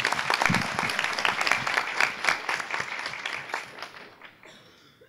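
Audience applauding, the clapping thinning out and dying away over the last second or so.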